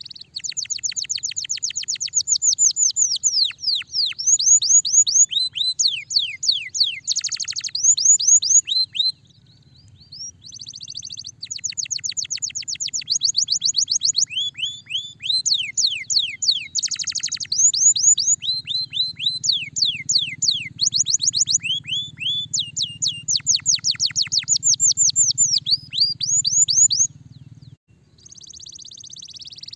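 Domestic canary singing: fast trills of repeated high, down-sweeping notes in long phrases, with short breaks about nine seconds in and near the end.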